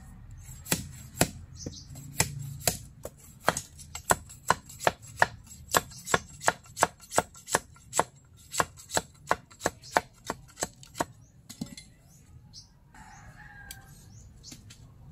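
Bolo knife blade chopping at a green bamboo pole in quick, even strokes, about two a second, trimming off the excess parts; the chopping stops about eleven seconds in.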